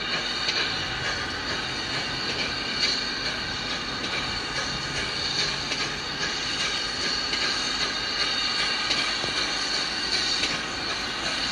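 Diesel locomotive engine idling with a steady high whine over its running noise, and a few faint clicks.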